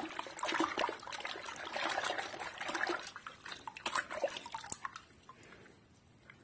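Soapy water in a basin being sloshed and splashed by a hand scrubbing a small toy car, with many small splashes that thin out after about three seconds and die down near the end.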